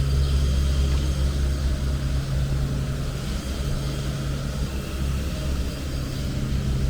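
Wet city street ambience: a steady low rumble under an even hiss, with no distinct events.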